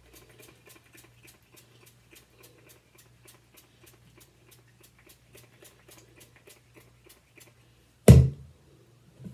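Finger-pump spray bottle pumped rapidly, making faint clicking squirts at about five a second, which stop about seven seconds in. A loud single thump follows about a second later.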